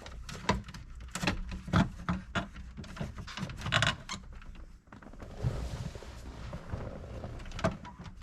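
Plastic dash trim being fitted and pressed into place: a run of clicks and knocks, busiest in the first four seconds, with a short creak about four seconds in and one more click near the end.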